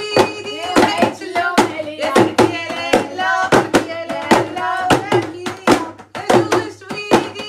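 Quick rhythmic hand clapping, a few claps a second, under a voice singing sustained notes: a festive song.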